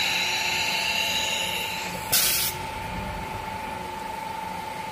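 Automatic tool changer on a stone-cutting CNC router: a short, loud blast of compressed air about two seconds in as the pneumatic spindle releases or clamps a tool holder, over a steady high whine from the machine.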